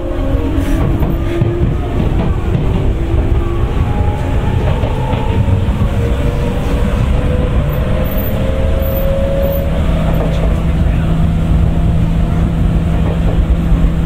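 Tokyu 9000 series electric train's early Hitachi GTO-VVVF inverter whining in several tones that climb in pitch as the train accelerates, over the rumble of the train running on the track. About two-thirds of the way through, a steady low hum takes over.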